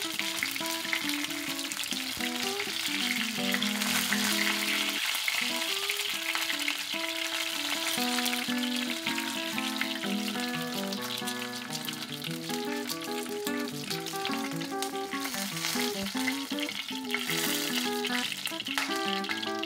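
Battered fish fillets sizzling in hot shallow oil in a frying pan, a continuous crackling hiss. Background music with plucked melodic notes plays throughout.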